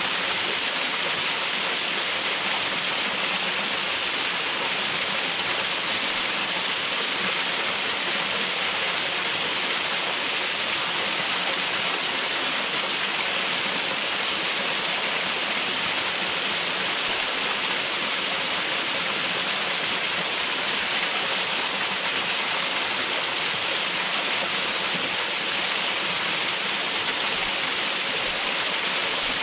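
Waterfall running, a steady, even rush of falling and splashing water.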